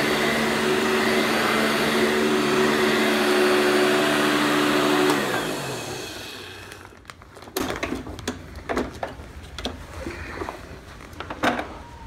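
Eureka heavy-duty commercial upright vacuum, fitted with a new brush roll and belt, running steadily with a motor whine, then switched off about five seconds in, its pitch falling as the motor spins down. A few sharp knocks and clatters follow as the machine is handled.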